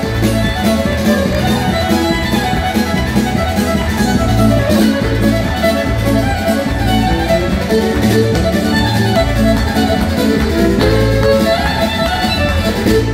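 Live country band playing: a fiddle carrying the melody over strummed acoustic guitar, with a steady beat underneath.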